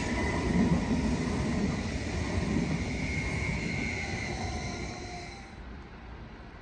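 Regional electric multiple unit running away over the tracks, wheels rumbling on the rails with a faint electric motor whine, fading as it goes. About five and a half seconds in the sound cuts to a quieter background hum.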